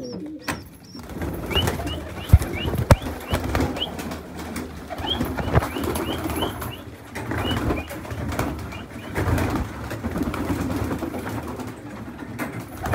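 Pigeons cooing and stirring in a wire-mesh loft as its cages are opened, with runs of short high squeaks. A few sharp knocks sound in the first half.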